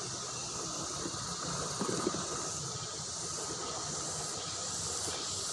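Steady rushing of a fast-flowing river, with a short louder rustle about two seconds in.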